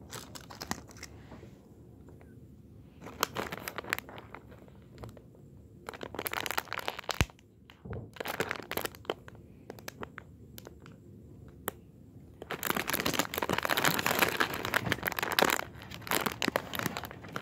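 Clear plastic packaging bag crinkling in bursts as squishy toys are handled and squeezed through it, with the longest and loudest stretch of crinkling a little after halfway.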